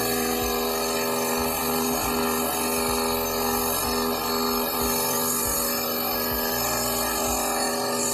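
Air-powered paint spray gun hissing, the hiss swelling and easing every second or two as the trigger is worked, over a steady hum.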